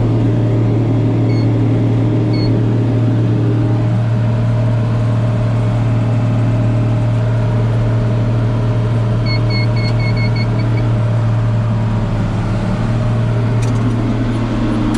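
Tractor engine running steadily while pulling a round baler, a steady low drone heard from inside the cab. Short electronic beeps sound twice near the start, then a quick run of about seven beeps a little after the middle.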